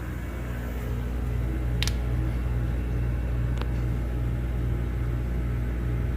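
ANEST IWATA SLP-07E-S5 oil-free scroll air compressor running with a steady low hum that swells slightly in the first second, with two short clicks about two and three and a half seconds in.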